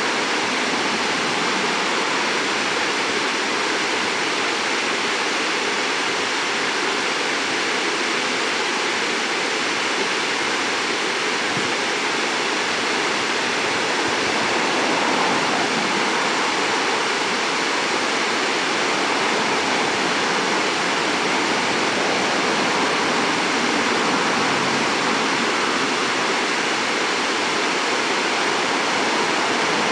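Creek water rushing steadily over a low fall and rocky rapids.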